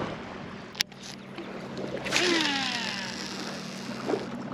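Baitcasting reel on a cast: a sharp click about a second in, then the spinning spool whirs with a whine that falls in pitch as it slows.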